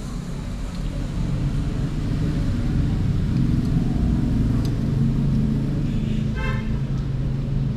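A vehicle engine running with a steady low hum that grows louder, with a short horn toot about six and a half seconds in.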